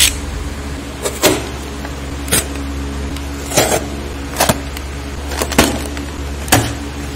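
A box cutter's blade slitting the seals of a small cardboard box: about nine short scrapes and taps, roughly a second apart, as the blade is drawn along the edge and the flap is forced open, over a steady low hum.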